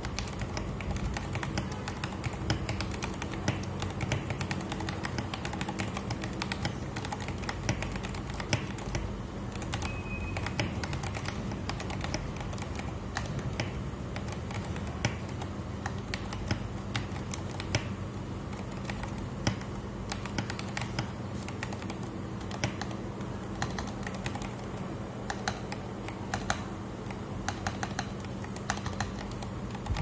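Continuous typing on a Tester68 mechanical keyboard with lubed retooled Cherry MX Black linear switches and XDA-profile keycaps, several keystrokes a second in an uneven run.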